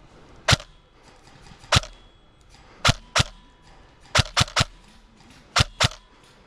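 Airsoft replica firing single shots, about nine sharp cracks in an uneven rhythm, some spaced a second apart and others in quick pairs and triples.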